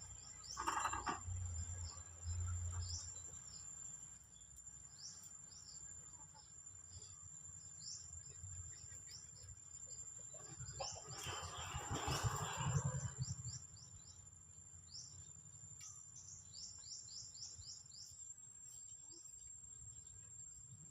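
Birds chirping in many short, high, falling calls over a steady thin high-pitched tone, with a louder rush of noise about eleven to thirteen seconds in.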